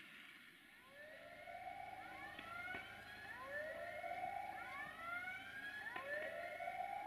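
Level-crossing warning siren sounding in repeated rising wails, one about every two and a half seconds, signalling an approaching train.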